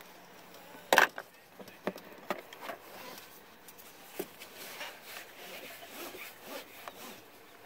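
A man puffing on a cigar: soft lip smacks and small clicks with breathy puffs, and one short, louder burst about a second in.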